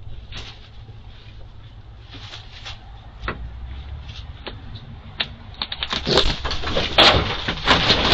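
A black vulture moving about on dry straw and twig litter: scattered scratches and rustles, building into a quick run of louder scrapes and rustles in the last two seconds.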